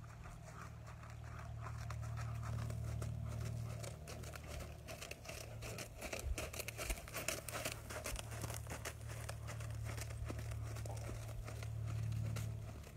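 A Paint Horse mare's hoofbeats thudding on soft sand arena footing, loudest and sharpest as she passes close by about five to eight seconds in, over a steady low rumble.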